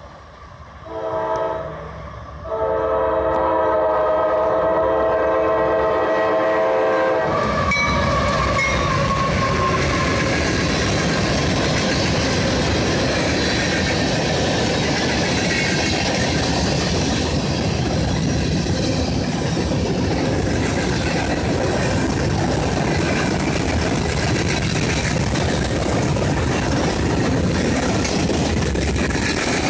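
A GE AC4400CW freight locomotive's horn sounds two blasts, a short one and then a long one of about five seconds, as the train approaches. About seven seconds in, the locomotives reach the spot and the freight cars roll past with steady, loud wheel-on-rail noise and clickety-clack.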